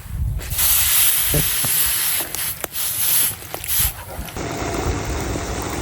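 Water poured onto a hot titanium cooking plate of sautéed harissa paste and smoked garlic, hissing and sizzling as it hits the plate; the hiss drops to a quieter, steadier sizzle a little past four seconds in.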